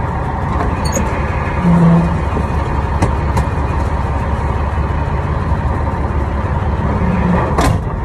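Old pickup truck running, heard from inside the cab: a steady low engine and road rumble, with a brief low hum about two seconds in and a sharp knock near the end.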